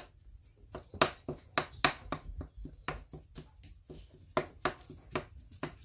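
Spatula tapping and scraping against a skillet while chopping raw ground turkey into crumbles: a string of irregular sharp clicks, about three a second, with a brief pause a little before four seconds in.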